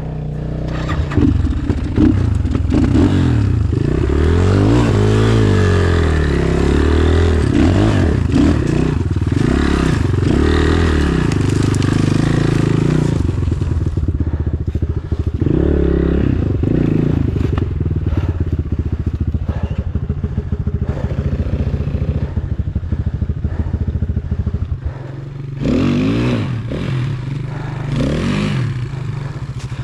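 Enduro motorcycle engine being ridden off-road, its revs rising and falling over and over as the throttle is worked. It settles for a while past the middle, then revs up and down again near the end.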